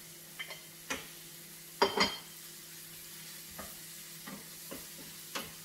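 Onion, garlic and ginger sizzling in oil in a stainless steel frying pan while a wooden spoon stirs them, knocking and scraping against the pan. Two loud spoon knocks come close together about two seconds in.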